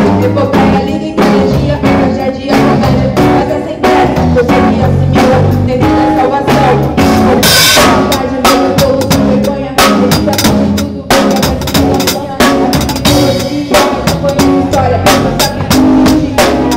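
A rock band playing an instrumental passage: a drum kit keeps a busy beat with snare and kick under a moving electric bass line. There is a bright cymbal crash about seven and a half seconds in.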